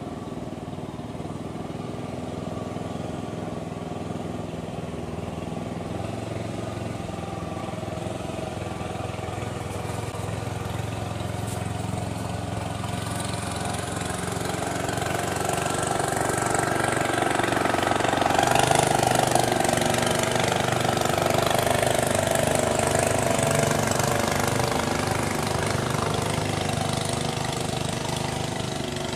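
An engine running steadily, getting louder through the middle and then easing off a little.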